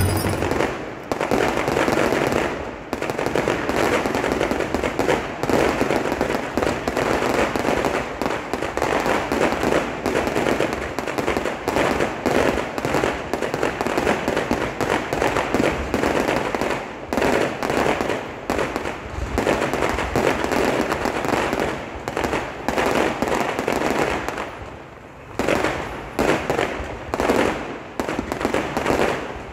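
Fireworks going off in a dense, continuous barrage of bangs and crackles, many per second, easing briefly near the end before picking up again.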